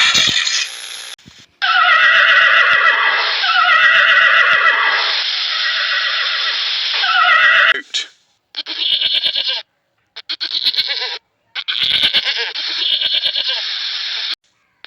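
An animal calling: about three long calls that fall in pitch, then several shorter, buzzy calls broken by sudden gaps.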